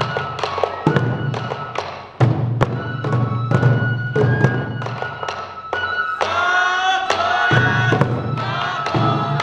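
Sansa odori festival music: taiko drums struck in a quick, steady beat under a bamboo flute melody, with voices joining in song about six seconds in.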